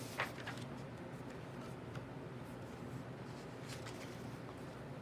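Quiet room tone with a steady low hum and a few faint clicks and rustles, the sharpest just after the start.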